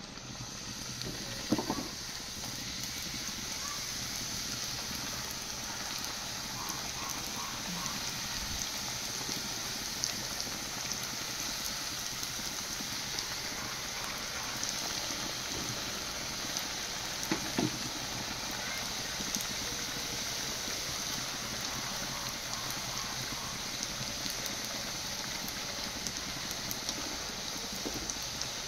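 Golgappa puris sizzling as they deep-fry in hot oil in a metal kadhai: a steady hiss. Two or three sharp knocks stand out, the first about a second and a half in and another about halfway through.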